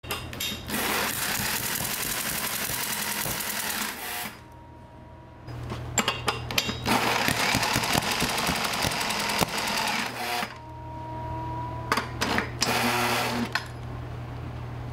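Small lawn mower engine running on honey in place of oil, a loud rough clatter of rapid ticks over a steady low hum. The clatter drops away twice, about four seconds in and again past the ten-second mark, leaving a faint steady whine, as the engine runs toward locking up with the honey boiling in its crankcase.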